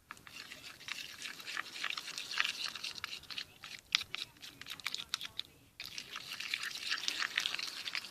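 Sticky hand-soap slime being mixed with paint, giving a dense run of wet clicks and squelches, with a brief pause about two-thirds of the way through.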